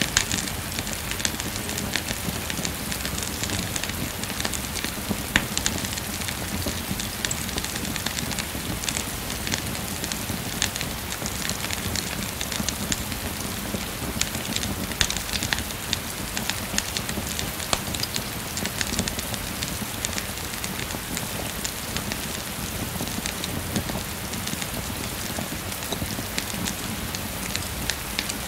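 Steady rain hiss mixed with a wood fire crackling, with scattered sharp pops from the burning logs.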